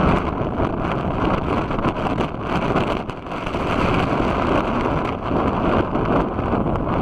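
Strong onshore wind buffeting the microphone in gusts, over the rush of heavy breaking surf. The gusts ease briefly about three seconds in.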